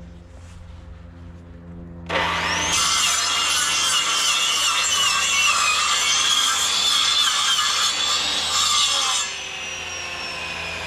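Electric power saw cutting through pallet wood, starting about two seconds in and running for about seven seconds with a wavering whine. It stops cutting suddenly, and the blade spins down with a slowly falling whine.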